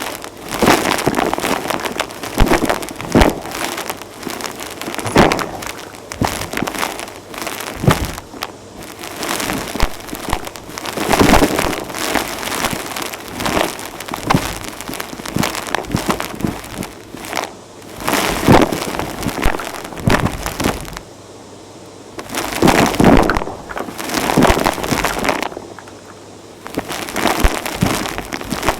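Vacuum cleaner sucking up crunchy dirt and grit, a dense crackle of debris rattling up the nozzle and hose over the motor's steady running. The crackling eases off twice briefly in the last third.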